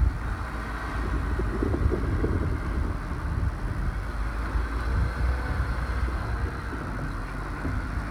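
Steady low outdoor rumble with wind buffeting the microphone.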